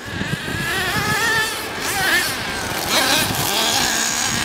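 Radio-controlled car's motor whining at high speed, its pitch rising and falling as the throttle changes, with wind buffeting the microphone.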